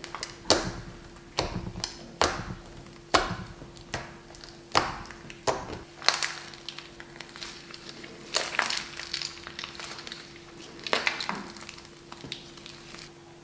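Hands kneading, squeezing and stretching a pink fluffy slime made with shaving foam and white glue, giving sticky crackles and squelching pops about once a second, softer in the second half.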